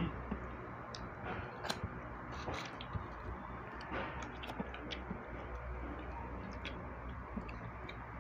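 Eating by hand: scattered small clicks and smacks of chewing, with light taps of fingers picking rice and fried fish from plates, over a faint steady low hum.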